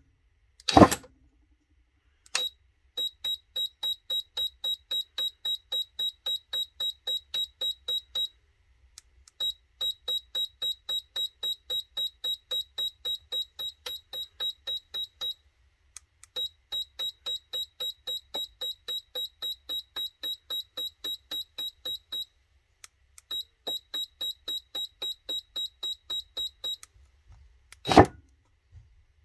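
Electronic beeping from a remote-controlled twin 3-inch electric exhaust valve kit as its valves are cycled: runs of short, even beeps at about three a second, four runs in all, with a sharp click between runs. A short loud knock comes just after the start and another near the end.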